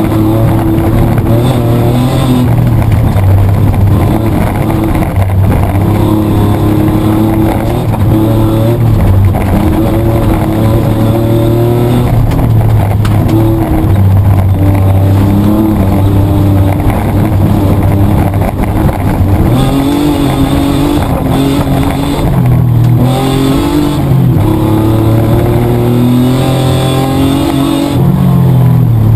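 Mitsubishi Triton 4WD's petrol engine heard from inside the cabin under hard off-road rally driving, loud throughout, its pitch repeatedly climbing as it revs and dropping back at gear changes and lifts.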